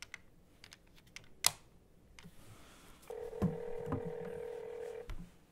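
Desk phone keypad buttons clicking as a number is dialed, with one sharp click about a second and a half in. A steady two-second ringing tone then comes over the speakerphone while the call goes through, with a couple of soft knocks during it.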